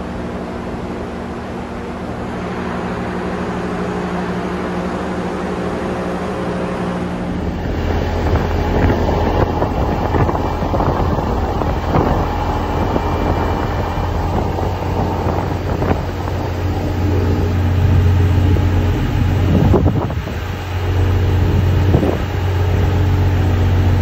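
Wheat pouring onto a pile in a grain storage dome, a steady rushing with a machine hum under it. About seven seconds in it changes to the steady low hum of a semi truck's diesel engine running, heard from inside the cab.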